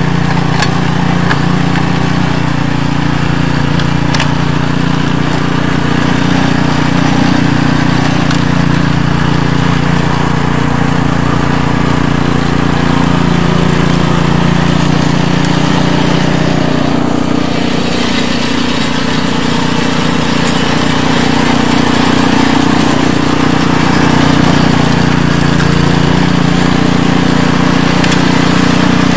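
Two-stage snowblower's Briggs & Stratton engine running steadily under load as the machine clears snow, with a slight dip in its note a little past the middle.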